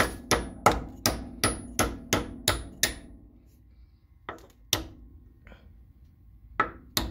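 Hammer beating the pad-retaining pins through a Brembo 17z six-piston brake caliper. Sharp blows come about three a second, then pause with two single blows about halfway, then come fast again near the end.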